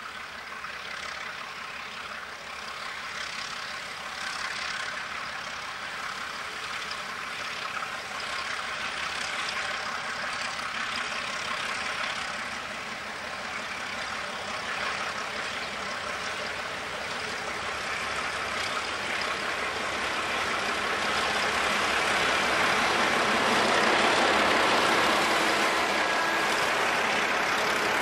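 Several 48 class Alco diesel-electric locomotives working a freight train, their six-cylinder Alco 251 engines running under load. The sound grows steadily louder and is loudest as the locomotives pass close by near the end.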